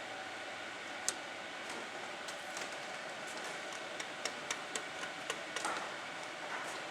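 Steady background hiss with faint hum, broken by scattered short sharp clicks and taps, most of them bunched about two-thirds of the way in.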